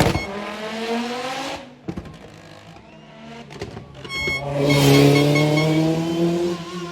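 Rally car engines at speed: one car passes and fades away with its pitch falling, then about four seconds in another car comes up loud at full throttle, its engine note climbing steadily.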